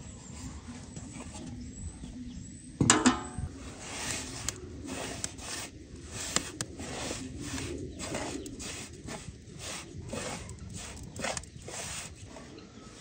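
A wooden spatula stirs dry flour for halva in a large aluminium basin, scraping against the metal in short strokes about twice a second. About three seconds in there is one loud ringing metal clang as the emptied aluminium basin knocks against it.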